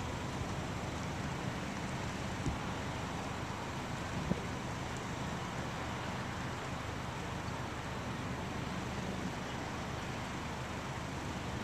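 Steady storm wind rushing, with a low rumble underneath and a couple of faint knocks.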